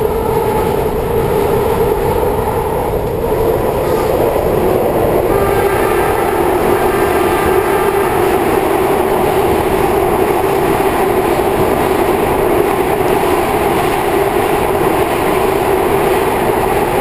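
Steady running noise of a moving metro train heard from inside the rail car: wheel and track rumble under a constant hum, which drops a little in pitch about five seconds in.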